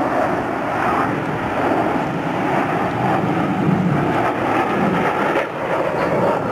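Loud, steady jet engine noise from four Blue Angels F/A-18 Hornets passing in diamond formation.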